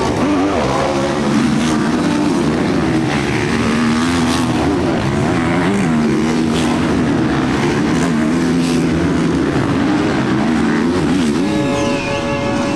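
Motocross bikes racing, their engines revving up and down as they accelerate and shift through the course.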